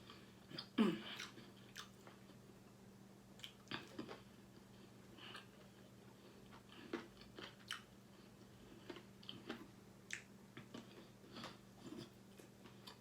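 Close-up chewing and biting of chicken: scattered soft crunches and wet clicks of a mouth working on food, some louder bites among them.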